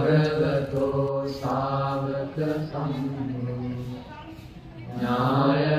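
A male voice chanting Buddhist verses in Pali, drawn out on steady held notes, breaking off for about a second near the end before the chant resumes.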